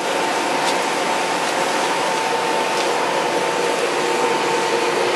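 Forced air from the blower rushing through the pipes into the bloomery furnace's tuyeres: a steady hiss with a faint whistle held on a steady pitch, and a few faint ticks.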